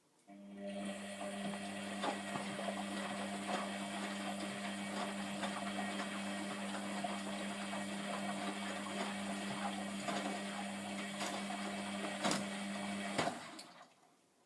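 Hotpoint WMF720P washing machine: a click, then a motor starts and runs with a steady, unchanging hum for about thirteen seconds, with a couple of sharp clicks near the end before it winds down and stops.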